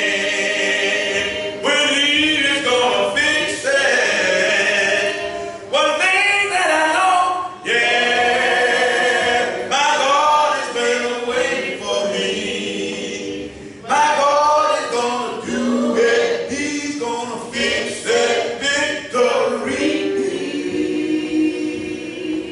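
A gospel song sung a cappella: a man's voice leads at the microphone and other voices join in, in long drawn-out phrases with no instruments.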